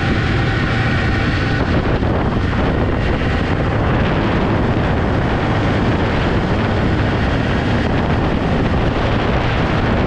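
1997 Polaris XLT snowmobile's three-cylinder two-stroke engine running steadily while under way on the trail.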